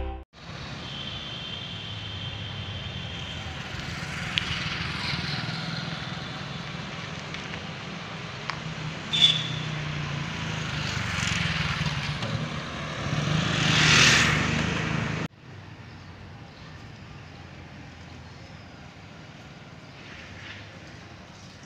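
Motorbikes and scooters passing along a near-empty street, one swelling louder and fading away about two-thirds of the way through. After a sudden cut, only a fainter, steady street hum remains.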